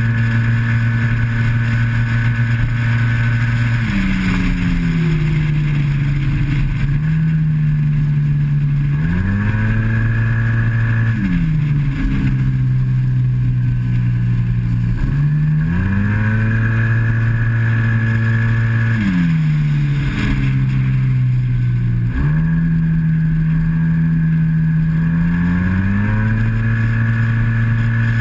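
Yamaha TMAX maxi-scooter's parallel-twin engine running hard on track, its note held steady by the CVT on the straights, falling off several times as the throttle shuts for corners and climbing back as it opens again. Wind rushes over the microphone throughout.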